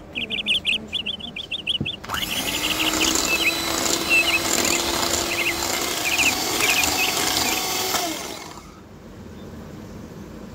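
Electric hand mixer starting about two seconds in and running steadily for about six seconds, its beaters whipping butter and icing sugar into buttercream, then switching off. Rapid high bird chirps sound through the first two seconds and keep going over the motor.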